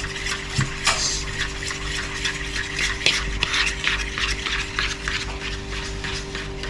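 Beer batter being stirred in a bowl: a utensil scraping and clicking against the bowl in quick repeated strokes as the thick flour-and-beer mix is worked.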